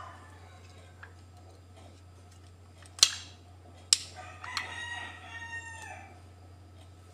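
Two sharp clicks about a second apart, then a rooster crows once, a call of about a second and a half that drops in pitch at the end.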